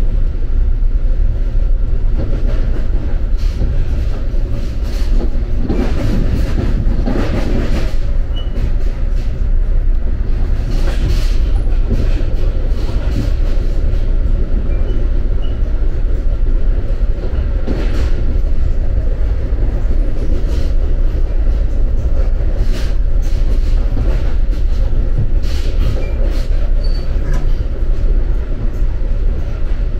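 NJ Transit commuter train heard from inside the passenger car at speed: a steady low rumble of wheels on rail. Scattered clattering knocks come through it, a cluster about six to eight seconds in and more now and then after.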